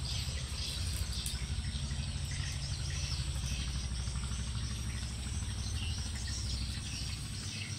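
Background ambience of birds chirping and insects trilling over a steady low rumble.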